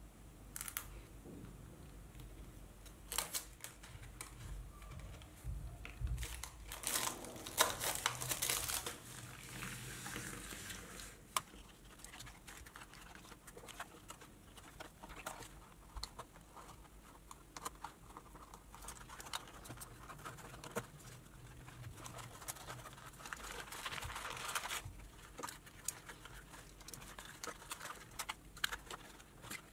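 Paperboard Marlboro cigarette pack being pulled open and unfolded by hand: irregular crinkling and tearing of card with small sharp clicks, louder about seven to ten seconds in and again around twenty-three seconds.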